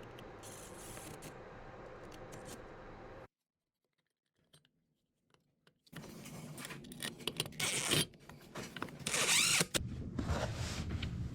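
Hand work on a dishwasher's electrical junction box: scraping, rustling and clicking as wires and the plastic cover plate are handled. A dead-silent gap of about three seconds falls about three seconds in, and the scraping is loudest in the second half.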